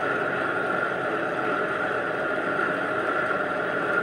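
Small benchtop metal lathe running with its automatic power feed engaged, the carriage advancing on its own. Its motor and gears make a steady running sound with a constant high whine on top.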